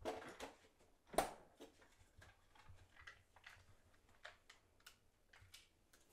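Quiet kitchen handling noises: a few clicks, then a sharp knock about a second in, followed by scattered light clicks and taps as a small plastic cup of red Jello is handled and its lid peeled off.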